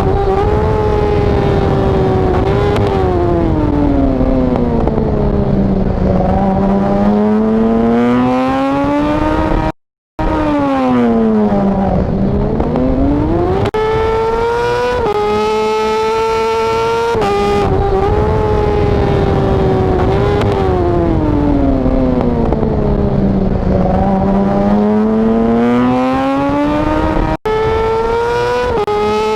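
Yamaha R6 inline-four sportbike engine screaming at high revs, its pitch sinking slowly and climbing back up twice, with a complete cut-out for a split second about ten seconds in.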